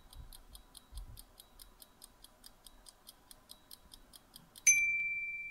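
Countdown-timer clock ticking sound effect, rapid even ticks several times a second. About 4.7 s in, it ends with a single loud ding that rings on and fades, marking time up.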